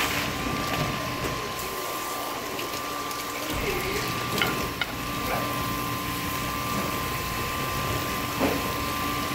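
Yellowtail head meat and kuruma prawns sizzling in soy sauce and fish fat in a large frying pan, with a few light clicks of a metal spoon against the pan, over a steady hum.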